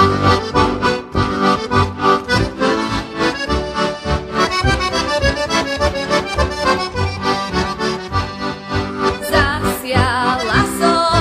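Heligónka (Slovak diatonic button accordion) playing an instrumental passage of a folk song, a lively melody over a steady pulsing bass beat.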